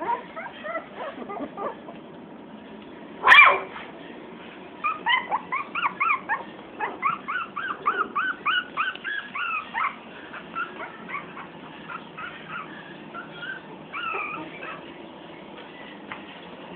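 Puppies whimpering and yipping in short, high, whiny cries. There is one loud yelp about three seconds in, then a fast run of cries for several seconds that trails off fainter.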